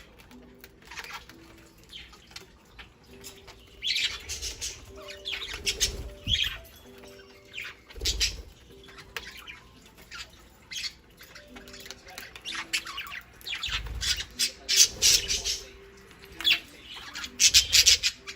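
Budgerigars squawking and chirping in quick, sharp calls as they squabble over food, the calls growing busier in the second half, with a few low thumps among them.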